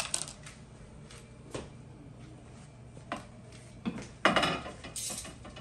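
Metal kitchen tongs and cookware clinking: a few separate knocks, then a louder clatter about four seconds in.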